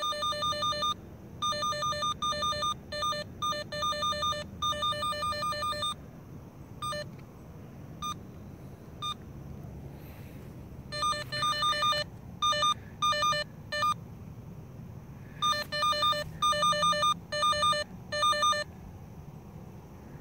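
Handheld underground cable locator receiver beeping a high electronic tone in quick trains of pulses. The beeping drops to a few scattered single beeps for several seconds in the middle, then comes back in fast trains, as the receiver picks up, loses and regains the tracer signal from the buried wire.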